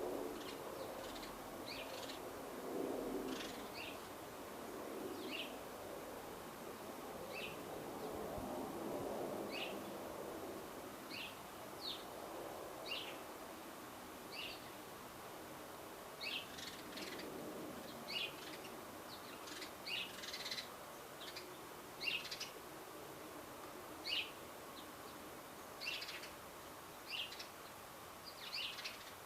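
Wild garden birds chirping, short separate calls repeated over and over and coming closer together in the second half. A low, steady background noise sits underneath in the first half.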